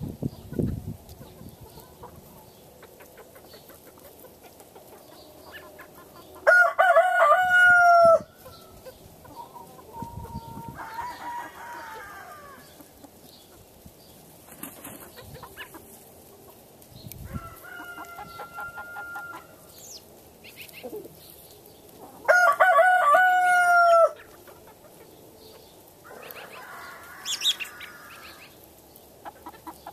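Free-range chicken flock: rooster crows, two loud ones about fifteen seconds apart, each just under two seconds long, with softer chicken calls and crowing in between.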